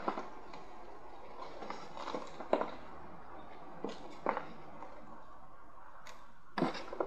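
Steady background hiss with about six scattered short clicks and taps, the loudest near the end.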